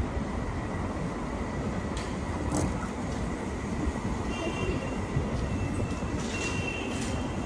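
Street ambience: a steady low rumble, with short, faint high squeaky tones about halfway through and again near the end.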